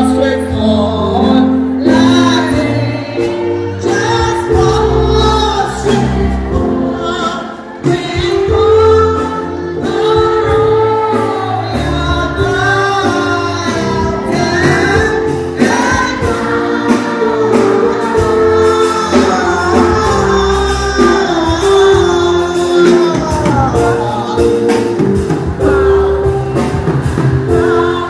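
Gospel music: many voices singing together over sustained keyboard chords and a bass line.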